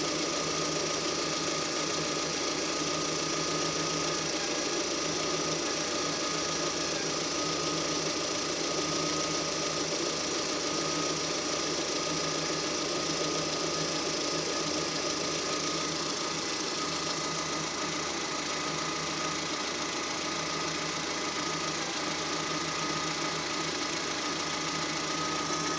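Lada Granta engine idling steadily, with a thin steady high tone running through the engine sound.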